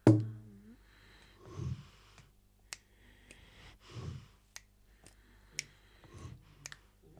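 Slow footsteps on dirt, a soft thud roughly every two and a half seconds, with sharp dry clicks between the steps. A loud thump with a short pitched tail opens the stretch.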